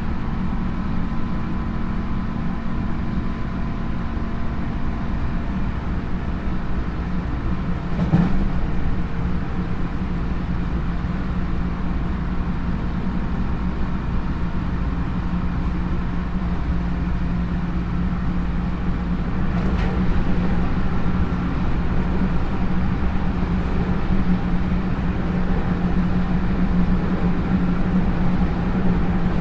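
Onboard running sound of a JR 311 series electric train heard inside the motor car KuMoHa 311-2: a steady hum from the traction motors and gearing over wheel-on-rail rumble, at a constant pace. Brief knocks from the running gear come about eight seconds in and again about twenty seconds in.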